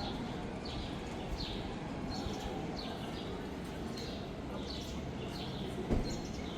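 A bird calling over and over: short high chirps that fall in pitch, about one a second, over a steady background murmur, with a soft thump near the end.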